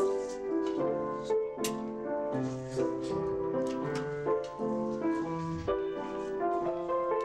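Piano music playing a tune of short notes that change every fraction of a second, with a few light taps.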